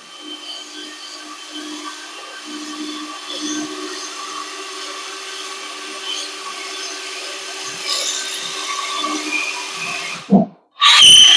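DeWalt 20V Max XR brushless cordless hammer drill running steadily under load. It stops about ten and a half seconds in, then starts again louder just before the end.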